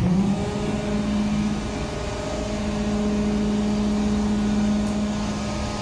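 ISUZU FTR refuse truck's diesel engine rising to a higher speed at the start and holding a steady hum as it drives the compactor's hydraulics, while the rear packer plate cycles.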